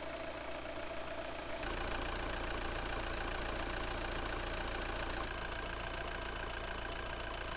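Audi A4 B8's 2.0 TDI four-cylinder turbodiesel idling steadily, heard close up in the open engine bay, a little louder from about one and a half seconds in. It is running again after a pressure-wash of the engine bay.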